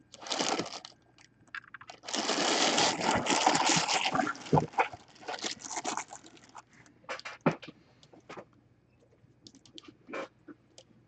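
Plastic wrapping and cardboard packaging rustling and crinkling as a boxed helmet is handled, with scattered clicks and knocks. The packaging noise is loudest and most continuous for a couple of seconds about two seconds in.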